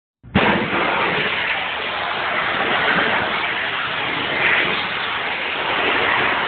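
Pressure washer spraying a concrete surface: a steady, loud hiss of water blasting on concrete.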